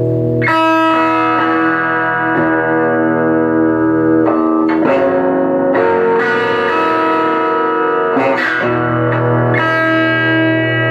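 Electric guitar played through the Parks Blues Howler, a handbuilt tube amp with an EF86 pentode first preamp stage and octal tubes. Chords are struck every second or two and left to ring.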